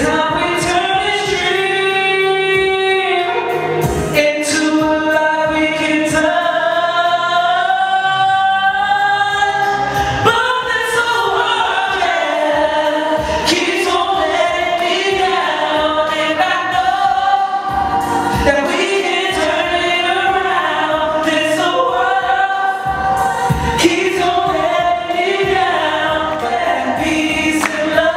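A song: singing with backing music, the voice holding long notes.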